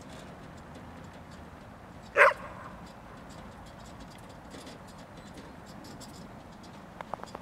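A dog gives one short, loud bark about two seconds in, over a steady low background.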